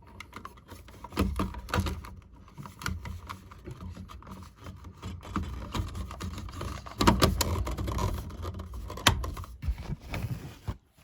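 Handling noise of a smoke alarm being fitted back onto its mounting: scattered plastic clicks and knocks, with louder knocks about seven and nine seconds in.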